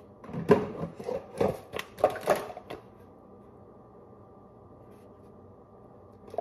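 A quick run of knocks and clicks as kitchen items such as a plastic funnel and bottle are handled and set down on a countertop, loudest about half a second in. After about three seconds it gives way to a faint steady hum.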